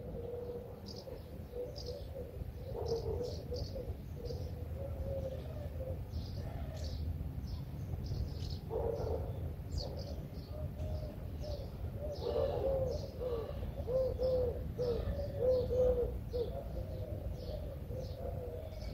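Small birds chirping in short, high, repeated notes while a pigeon coos in a string of low, rounded notes that grows stronger in the second half, over a steady low background rumble.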